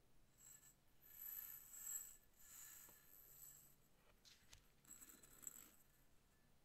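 Faint rattle of small chocolate balls rolling in a ceramic bowl, with light high ringing, about one to three seconds in; then a few soft clicks and rustles of hands handling cardboard candy boxes.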